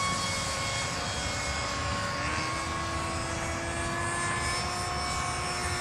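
Electric ducted fan of a 70 mm radio-control F-18 jet whining steadily as the model flies fast overhead. Its pitch shifts about two seconds in as it passes.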